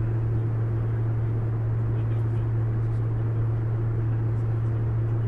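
Bombardier CRJ900 regional jet in flight: a steady, unbroken low drone of engines and airflow, with a strong deep hum beneath.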